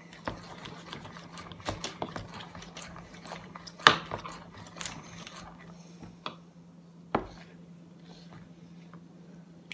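Borax-activated slime being squished and stretched by hand, a string of small sticky clicks and pops, with a sharper knock about four seconds in and another about seven seconds in. A steady low hum runs underneath.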